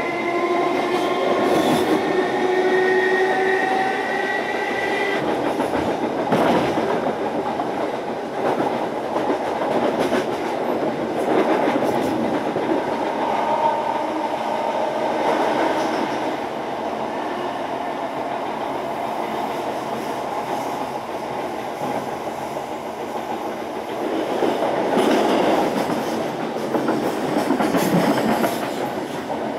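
Class 321 electric multiple unit heard from on board: its Brush TM2141C traction motors whine with a slowly rising pitch as the train picks up speed, cutting off about five seconds in. After that comes steady wheel-and-rail running noise with occasional clatter over rail joints.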